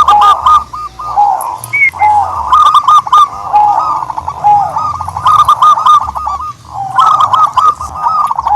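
Dove cooing: dense runs of short, rapid, repeated notes, in bursts with brief pauses between them.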